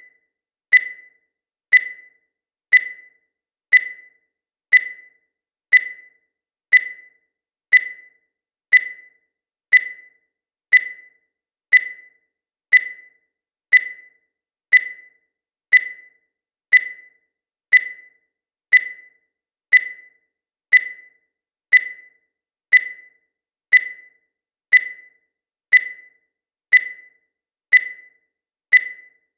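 Digital countdown timer beeping once every second: a short, high-pitched electronic beep that dies away quickly, marking each second of the countdown in a steady, even rhythm.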